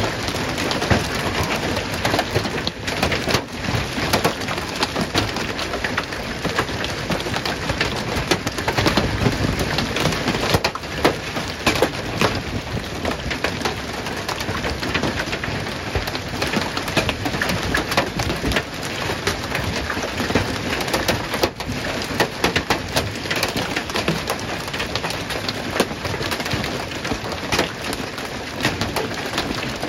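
Large hail pelting parked cars and gravel: a dense, steady clatter of countless hits on car bodies and the ground, with no letup.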